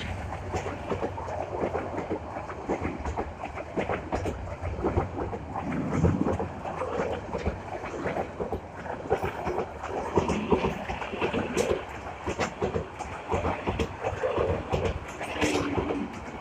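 Train cars rolling past, the wheels clattering over the rail joints in a continuous run of uneven clicks above a steady rumble.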